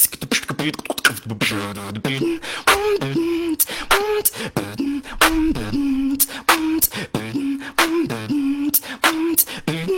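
A beatboxer performing with his mouth: sharp snare- and hi-hat-like strikes at about two a second over a hummed bass-and-melody line that steps between notes.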